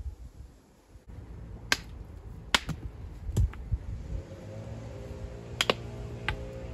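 Several sharp, irregularly spaced clacks of stone being knocked or tapped during dry-stone walling. From about four seconds in, background music with steady held tones fades in underneath.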